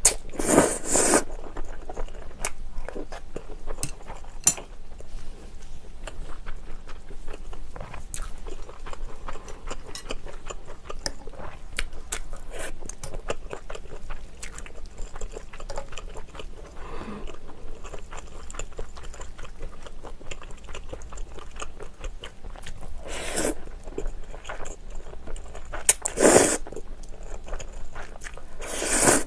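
Close-miked slurping of cream-sauced spaghetti: one long slurp at the start and three more in the last six seconds. Between the slurps there is steady wet chewing with small clicks of the fork and chopsticks.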